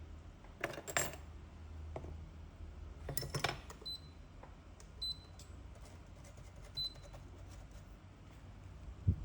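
Small metal tools clicking and clinking on a workbench during a phone repair, in two short clusters, over a steady low hum, with three faint short high beeps in between.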